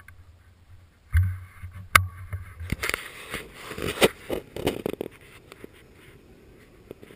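Handling noise from a shotgun carrying a mounted camera: a low bump about a second in, a sharp knock, then a few seconds of scraping and rattling clicks as the gun is handled.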